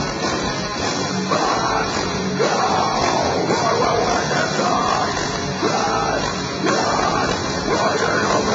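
Heavy metal band playing live: distorted electric guitars and drums, loud and continuous.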